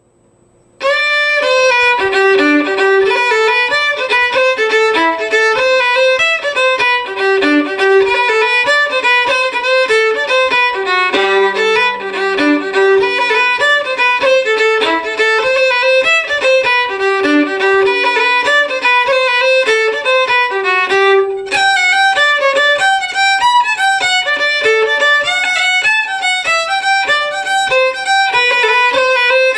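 Background music: a fiddle playing a quick, lively tune of rapid notes, starting about a second in.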